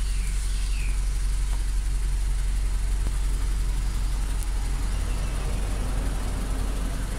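Honda Stream RN6 four-cylinder engine idling steadily through a Mugen sport exhaust, heard close at the tailpipe as a low, even rumble.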